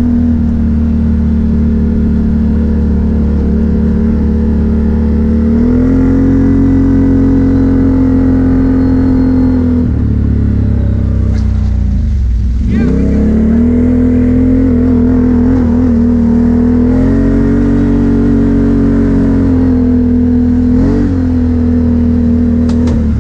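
ATV engine running at steady throttle, rising a little about a quarter of the way in. About halfway through the throttle eases off, the pitch drops sharply and then climbs back. There is another brief dip near the end.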